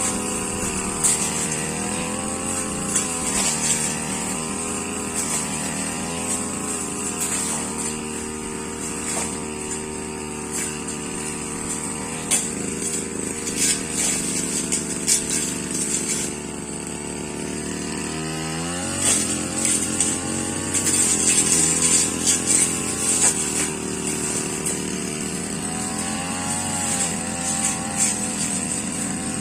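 Petrol brush cutter running under load while cutting through grass and saplings, its engine pitch wavering and rising sharply about two-thirds of the way through, with scattered sharp cracks as the blade strikes.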